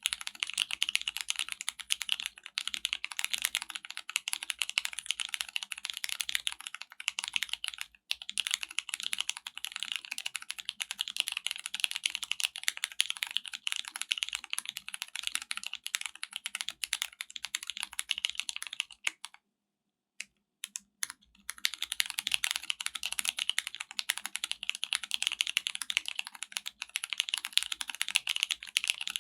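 Continuous fast typing on a Libra Mini mechanical keyboard with JWK Cotton Candy tactile switches on a polypropylene plate: a dense stream of keystroke clicks. A bit past the halfway point there is a pause of about two seconds with only a few lone keystrokes.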